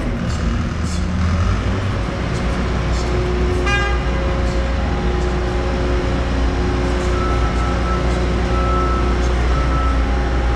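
Street traffic with a vehicle engine running steadily and a short horn toot about four seconds in. A short beep repeats about once a second in the second half.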